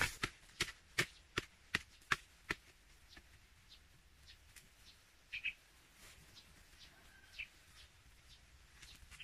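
A hand tool striking dry soil in a steady run of sharp knocks, about two and a half a second, fading away over the first two and a half seconds. After that come faint scattered taps and a short bird chirp about five seconds in.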